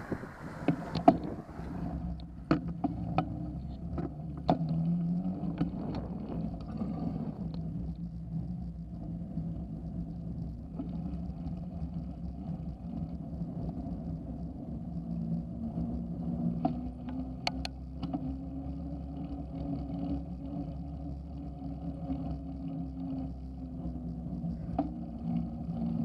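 A mountain bike riding on asphalt, heard through a handlebar-mounted camera: a steady hum from the tyres and frame. Rattling knocks come through the mount over bumps during the first several seconds, and there is one sharp click about 17 seconds in.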